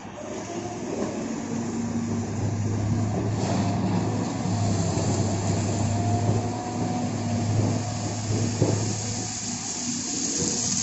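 Caterpillar 320 GC hydraulic excavator working a gravel pile, its engine running with a steady low hum under load. A short knock comes about eight and a half seconds in.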